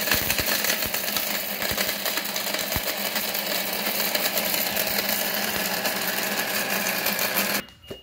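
24 V battery-powered DC mixer grinder running at speed with its small stainless-steel jar, grinding a dry ingredient to powder: a loud, steady whirr over a low hum. There are a few low knocks in the first few seconds, and the motor cuts off suddenly near the end.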